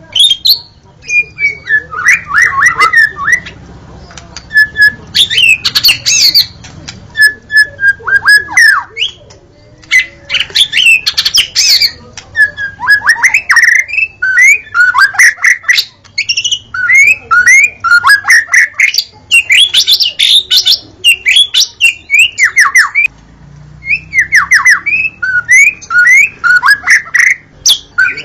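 White-rumped shama (murai batu) singing in full voice: a rapid, varied run of whistled phrases, quick sweeping notes and harsh chattering, with only brief pauses.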